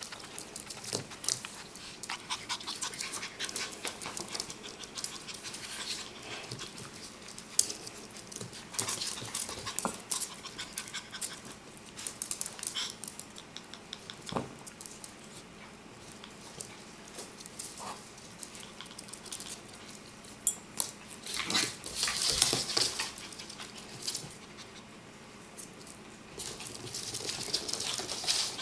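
Several Yorkshire terriers playing and chasing on a hardwood floor: irregular clicking and pattering of paws on the wood, with dog panting. There is a louder flurry about three-quarters of the way through.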